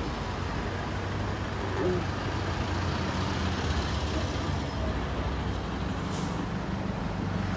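City street traffic dominated by a heavy diesel engine idling steadily at a low hum, with a short hiss about six seconds in.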